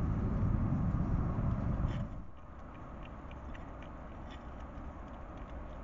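Hedgehogs chewing and crunching food from a dish, heard as faint scattered clicks. Under them is a low rumble that drops away about two seconds in.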